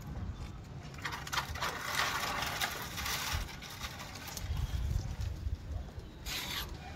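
Okra plants' leaves and stems rustling as they are handled and the pods picked, in a few uneven bursts, with a short sharper burst near the end.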